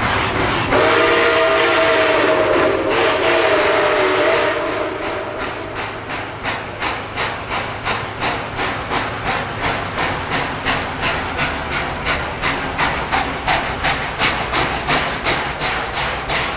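Nickel Plate Road 765, a Berkshire steam locomotive, blowing one long whistle blast of several notes at once for about four seconds, then running with steady, rhythmic exhaust chuffs, about three a second.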